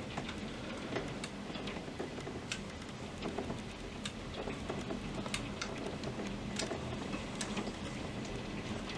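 Heavy thunderstorm rain falling steadily, with irregular sharp ticks of drops striking a hard surface close by.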